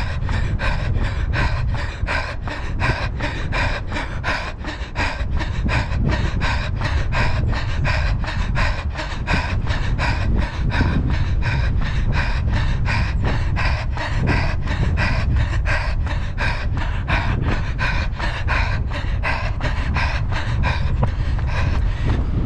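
A runner breathing hard at tempo-run effort, panting in a steady rhythm of about three beats a second, over a constant low wind rumble on the microphone.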